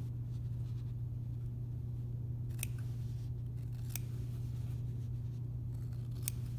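Small sewing scissors snipping through fabric, cutting the slit between the two welts of a double welt pocket: three sharp snips a second or two apart, over a steady low hum.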